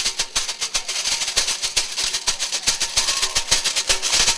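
Percussion music led by a fast, steady rattle of shakers, with drum strikes mixed in.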